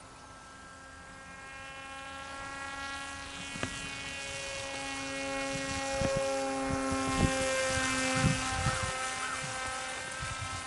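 Radio-controlled VersaWing flying wing's motor and propeller droning at a steady pitch, growing louder as it passes overhead and then fading as it flies off. A few low thumps sound during the pass.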